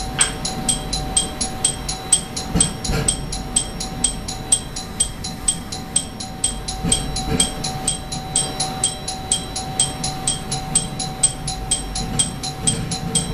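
Railway level-crossing warning bell ringing in a fast, even ding about four times a second, over the low rumble of the train running.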